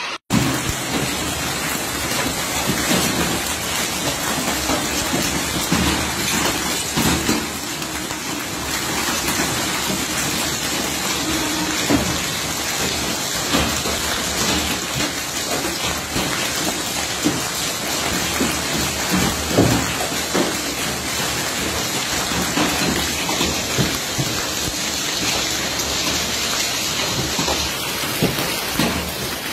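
A hailstorm pelting down steadily, a dense downpour of rain and hail with many scattered, sharper strikes of stones hitting the ground and surfaces.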